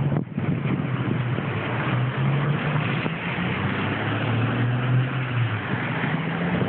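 A motor vehicle's engine hums steadily, its pitch shifting a little now and then, under a constant rushing noise.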